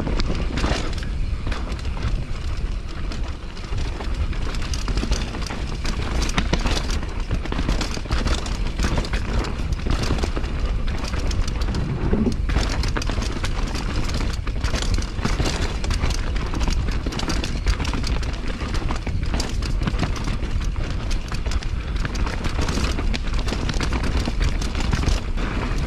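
A mountain bike descending a rough dirt trail, heard from a camera on the rider. Steady wind buffets the microphone, the tyres roll on dirt, and the bike clatters and knocks over the bumps.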